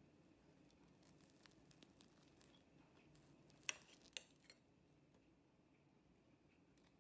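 Metal fork on a ceramic plate, cutting into French toast: faint scrapes and ticks, then two sharper clinks about halfway through, over a quiet room.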